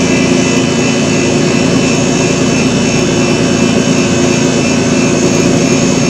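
A loud, steady droning noise with a constant hum underneath, unchanging throughout, like a fan or other running machine.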